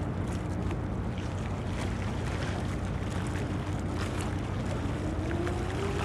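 Tugboat's diesel engines running with a steady low drone, their pitch rising from about four seconds in as the engines are throttled up. Wind buffets the microphone.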